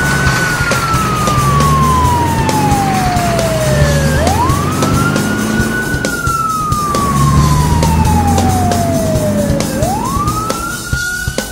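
Slow wailing siren: each sweep climbs quickly and then falls slowly over about four seconds, starting again twice. Under it runs background music with a drum beat.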